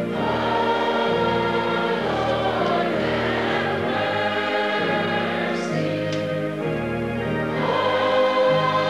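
A church congregation singing a slow hymn together in held chords, the harmony shifting every second or two.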